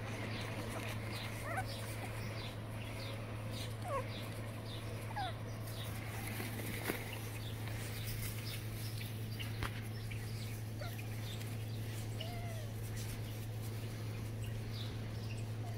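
Boston terrier puppies giving a few short, high whimpers and squeaks. Under them runs a string of short, high chirps, about two a second, over a steady low hum.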